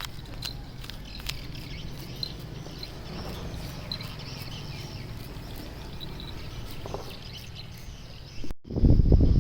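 Outdoor ambience: a steady low rumble with short, faint high chirps and scattered light ticks. Near the end it cuts off abruptly and gives way to loud wind buffeting the microphone.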